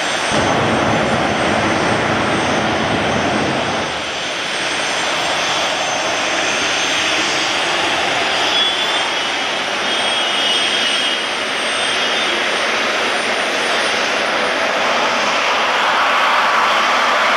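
Rolls-Royce Nimbus gas turbine in a Mini Cooper running loudly with a steady rushing whine. A heavier low rumble sits under it for about the first four seconds, then eases while the car creeps forward.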